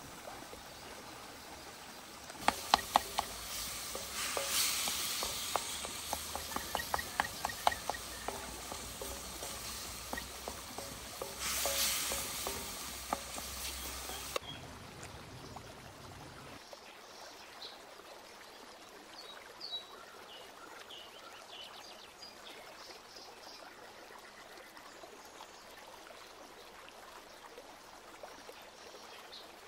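Cooking sounds: a quick run of utensil clicks and knocks over a sizzling hiss, which stops abruptly about halfway through. After that there is a quieter steady background with a few faint chirps.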